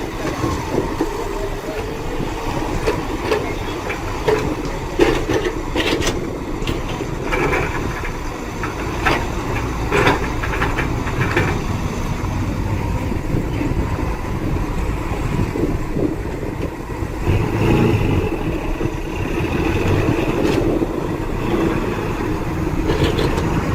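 Diesel engine of heavy earthmoving machinery running steadily, with scattered clanks and knocks in the first half and the engine swelling briefly about two-thirds of the way in.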